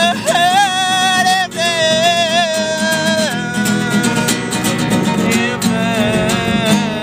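A man singing over a strummed nylon-string classical guitar, holding long wavering notes through the first half, with the guitar strumming on steadily.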